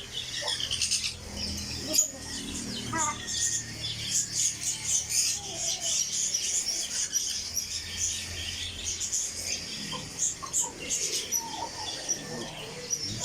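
Parrot chicks making rapid, high-pitched chirping begging calls during hand-feeding, continuous and overlapping.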